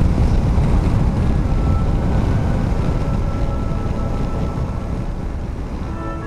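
Low wind rush and road rumble of a Honda Deauville 650 motorcycle being ridden, slowly getting quieter, with faint music coming in near the end.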